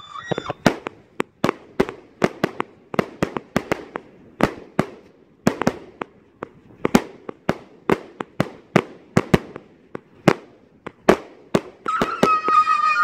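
A 260-shot consumer fireworks cake firing, a quick irregular string of sharp bangs and cracks at about three a second as the shots go up and break. Near the end a loud, steady high whistle comes in over the bangs.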